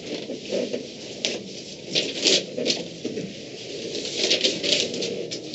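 Paper rustling and chair and foot shuffling in a small room as people shift and stand, with a few sharper rustles about two seconds in and again near the end.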